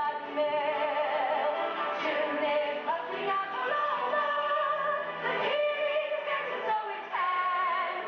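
Music with a woman singing over it, steady throughout.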